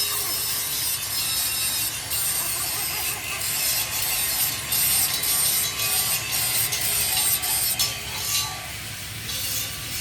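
A hand tool scraping and rasping against metal, continuous with irregular surges.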